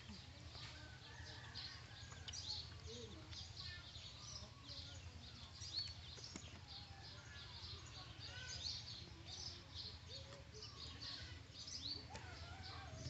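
Small birds chirping and twittering with many short, high calls, over a steady low hum.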